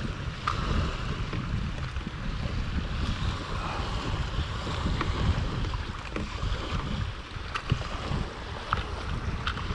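Wind buffeting the microphone in an uneven low rumble, over water lapping at the shore rocks, with a few faint clicks scattered through.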